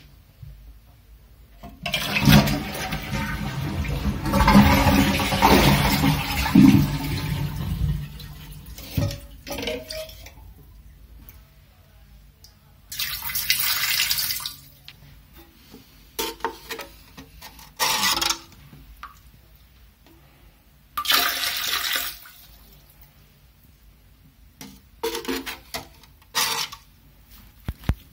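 Kohler toilet flushing with its water supply shut off, water rushing out of the tank into the bowl for about six seconds, and the tank not refilling. Then several short splashes as water is poured from a cup into the bowl.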